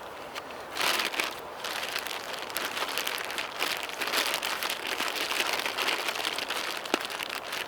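A bag crinkling and rustling as dumpling dough is mixed and squeezed inside it, starting about a second in and carrying on irregularly.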